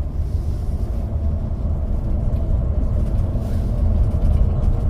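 Tour bus driving along, its engine and tyres making a steady low rumble heard from inside the cabin.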